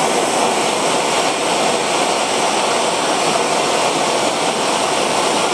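MAP gas hand torch burning with a steady hiss, heating a hardened steel punch to temper it.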